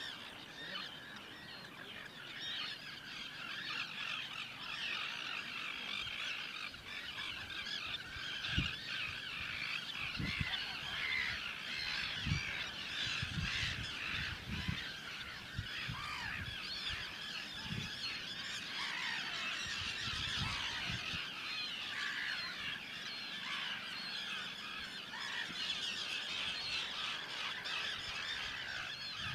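Dense, continuous chatter of a large flock of red knots calling in flight, many short overlapping nasal calls at once. A few low thumps come through in the middle.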